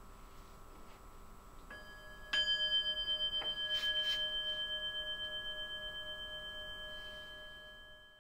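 A small metal bell is struck, lightly and then firmly, and rings on with a long, slowly fading tone that wavers as it dies away.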